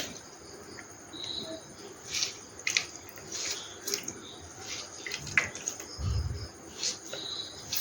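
Water being squeezed by hand out of boiled green gram leaves, dripping and splashing in irregular spurts.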